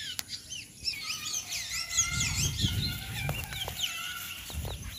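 Many small birds chirping at once in quick, overlapping calls. A low rumble with a few knocks joins about two seconds in.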